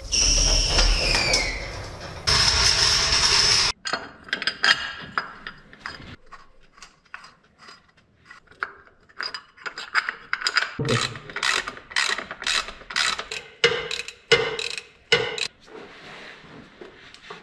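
A power tool whirs in two short bursts, its pitch falling as the first one winds down, running in the bolts of a new engine mount. Then a hand ratchet clicks in irregular runs for the rest of the time as the bolts are tightened.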